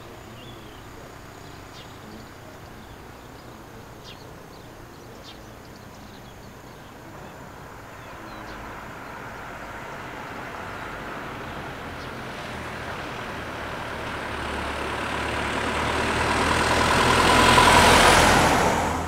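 A motor vehicle approaching, growing steadily louder for about ten seconds, passing close near the end and then quickly fading.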